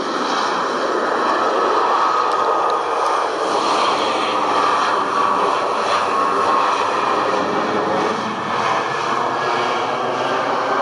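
Turbofan engines of an Embraer regional jet running as the airliner moves along the runway after landing: a loud, steady rushing roar.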